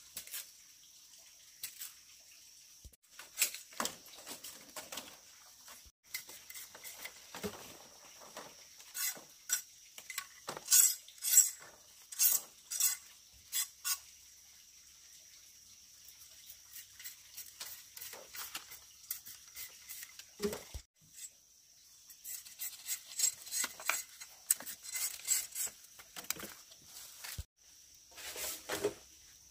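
Irregular light clicks, clinks and taps of objects being handled, coming in clusters with quieter gaps, over a faint steady high-pitched hiss.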